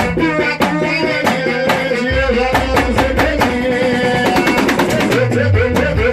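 A band playing an instrumental passage: drums and percussion keep a steady beat under guitar and a melodic line, and the bass fills in about two seconds in.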